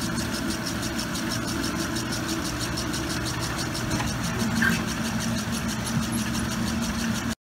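Cider-press pomace conveyor machinery running steadily as it pushes out the pressed apple pulp: a constant mechanical hum with a fast, even rattle over it.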